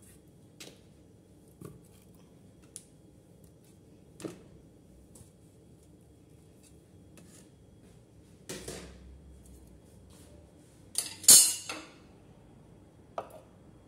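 Beef trotters being set and shifted by hand inside a stainless steel pressure cooker pot: scattered soft knocks and bumps against the metal, with a louder clatter near the end.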